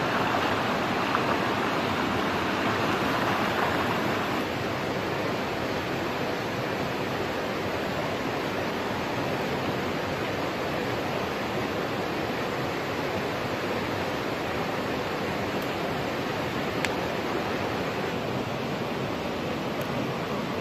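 A fast-flowing river rushing steadily over rocks. It drops a little in level about four seconds in, and a few faint clicks come near the end.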